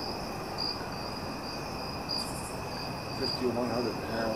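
A steady night insect chorus of high, even trilling, with a louder pulse on the top note about every second and a half and a short, very high pulsing buzz about two seconds in. A faint voice comes in near the end.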